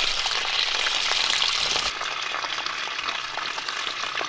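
Steady hiss of water running from an open hose, a little quieter after a cut about two seconds in.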